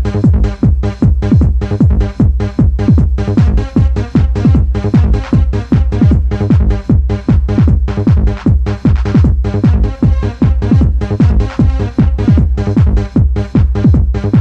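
Fast techno dance music from a mid-1990s cassette DJ mix: a steady kick drum on every beat under sustained synthesizer parts.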